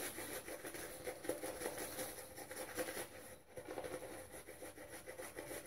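Omega boar-bristle shaving brush scrubbing quickly over a stubbled face, working shaving soap and a little added water up into a lather. It makes a soft, continuous, rapid brushing noise with a brief pause about midway.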